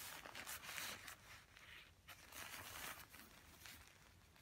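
Faint rustling of a down top quilt's thin nylon shell being handled, in two soft swishes about a second apart.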